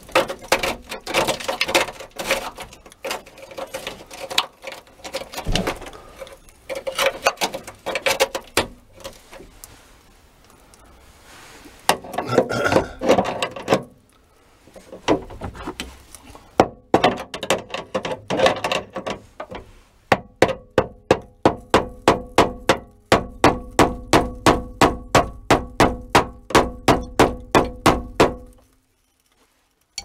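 Hammer striking metal on the seized liftgate latch. The taps are irregular at first, then become a fast, steady run of ringing strikes, about four a second, that stops shortly before the end.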